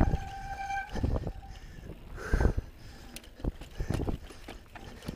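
On-One Codeine mountain bike clattering down a rocky trail, with uneven hard knocks and thuds as the wheels hit rocks and drops. Near the start a squeal lasting about a second and a half, typical of the BB7 mechanical disc brakes dragging.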